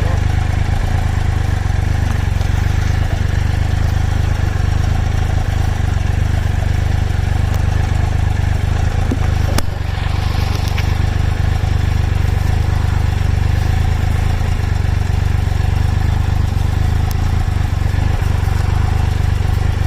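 Loud wind noise buffeting the microphone while riding a 2013 Triumph Tiger Explorer 1200, its three-cylinder engine running steadily underneath. One sharp click near the middle.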